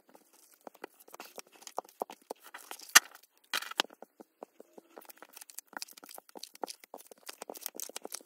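Tarot cards being dealt and turned over onto a mat: a quick, irregular run of light clicks and slaps with brief sliding swishes, and one sharp snap about three seconds in.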